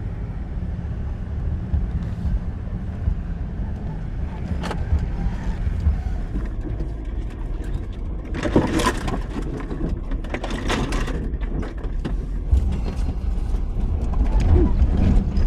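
Jeep Gladiator crawling slowly over a rough rocky trail: a steady low engine and drivetrain rumble. A burst of rattling and crunching from tyres and suspension on rock comes about eight to eleven seconds in.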